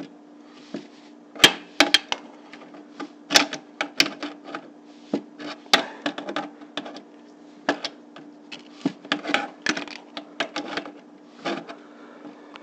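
Irregular metal clicks and knocks of a small wrench tightening a fitting on the dishwasher plumbing, with a steady low hum underneath.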